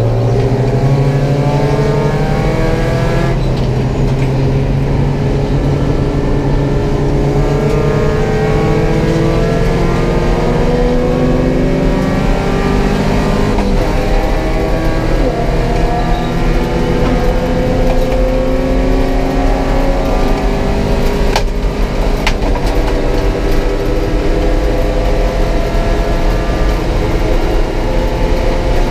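Porsche 944 race car's four-cylinder engine heard from inside the cabin at racing speed, its pitch climbing under acceleration and falling back at each gear change, several times over. Two sharp clicks come a little past two-thirds through.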